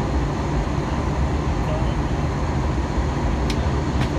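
Steady low jet-engine and airflow drone heard inside the cabin of an Airbus A321-200 climbing out after takeoff. Two faint light clicks come near the end.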